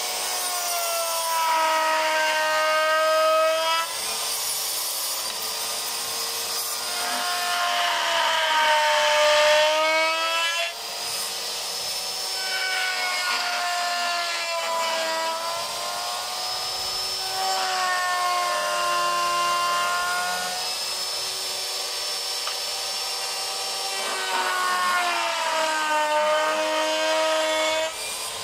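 Table-mounted wood router cutting rosewood, its motor whine sagging in pitch each time the stick is pressed into the bit and rising again as it eases off. This repeats about every five or six seconds, with the rasping of the cut underneath.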